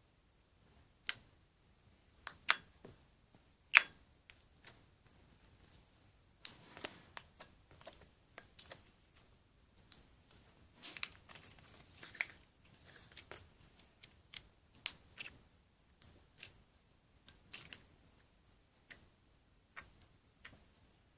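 Slime being squeezed and poked by hand, making scattered sharp clicks and small pops, with the loudest few in the first four seconds and softer crackling stretches later.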